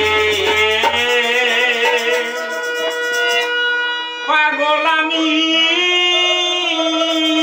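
Harmonium playing held notes with a man singing over it, the opening of a Bengali Murshidi folk song. The harmony changes about four seconds in.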